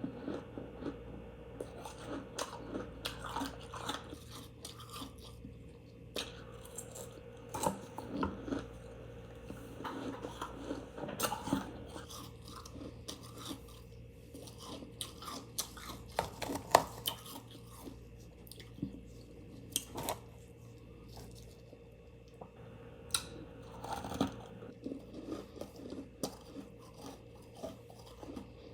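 A person chewing and crunching mouthfuls of refrigerator frost ice. The crunches come irregularly, a few of them sharper and louder, over a faint steady hum.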